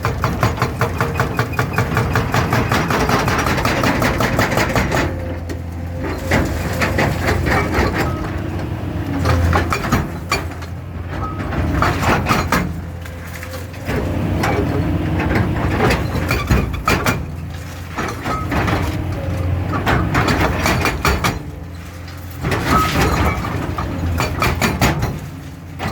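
Hydraulic breaker on a JCB JS205 excavator hammering a column in rapid, even blows, stopping briefly several times, over the excavator's steady diesel engine.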